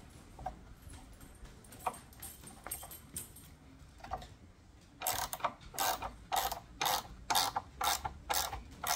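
Ratcheting combination wrench tightening a nut on a bolt through hardwood boards. A few faint clicks at first, then from about five seconds in a steady run of loud ratchet clicks, two to three a second, as the wrench is swung back and forth.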